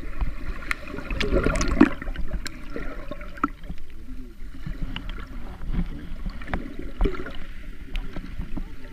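Muffled underwater sound from a camera held under the sea: a low rumble with gurgling water, scattered sharp clicks and a louder swell about two seconds in.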